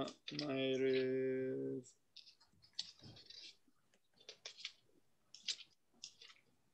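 A man says one drawn-out word, then a few seconds of faint, scattered clicks and rustles as he searches for a passage.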